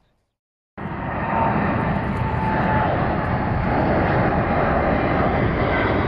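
Jet airliner flying low overhead, its engines running loud and steady with a held whine above the rumble. The sound starts suddenly under a second in.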